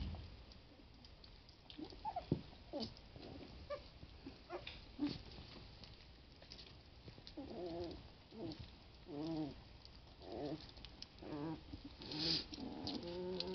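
Three-week-old puppies whimpering and grunting. Soft scattered clicks come first, then about halfway through a run of short, wavering, high whines.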